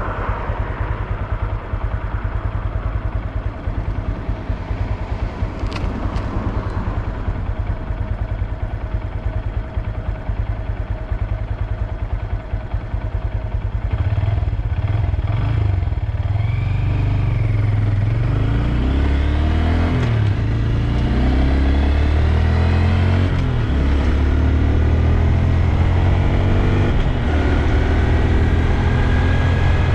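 Honda Grom's small single-cylinder engine running low and steady at first. From about halfway it grows louder, its pitch climbing and dropping again and again as the bike accelerates and shifts through the gears.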